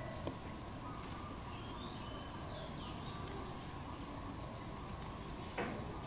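Steady outdoor background hiss with faint bird chirps, then near the end a few quick sharp wing flaps as a dove takes off from the branch.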